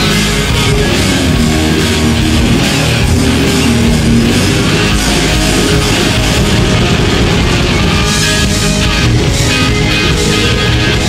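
Southern rock band playing live and loud: electric guitars over bass guitar and drums in an instrumental passage.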